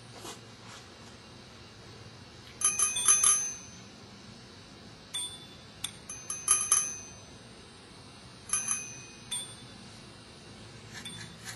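Small metal bells rung in several short bursts of quick strikes, each strike ringing briefly at the same high pitches. The loudest bursts come about three seconds in and again around seven seconds, with smaller ones between and near the end.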